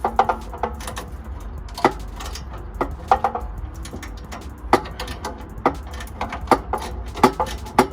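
Hand tools working on a car's exhaust bolts: irregular sharp metal clicks and clanks, roughly one every half second to a second, over a steady low rumble.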